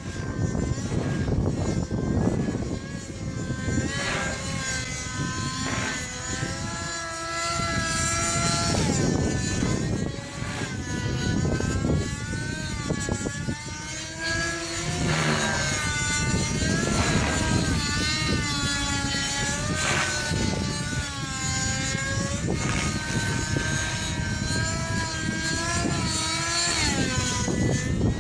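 TSA Infusion 600N nitro model helicopter in aerobatic flight: the glow engine and rotor whine rise and fall in pitch as the load changes through the manoeuvres, with a short whoosh of the rotor blades every couple of seconds.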